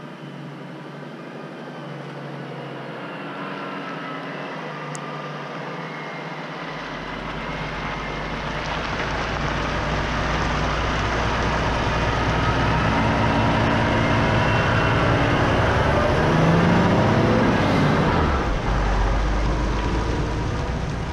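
Loaded timber truck with a trailer approaching on the road: its diesel engine and tyres grow steadily louder, then it passes close by near the end with a falling pitch.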